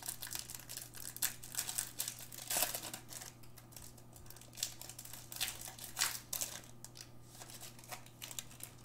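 Clear plastic wrapper of a pack of trading cards crinkling in the hands as it is torn open and pulled off the cards, in irregular crackles.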